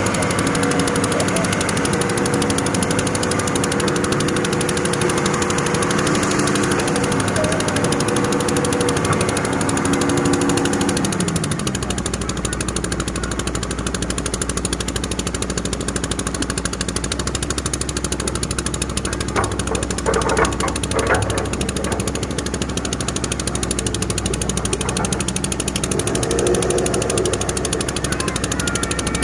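Heavy diesel engine of an excavator running hard while digging and loading sand, its pitch falling about eleven seconds in to a lower, steady running. A few metallic clanks come around twenty seconds in.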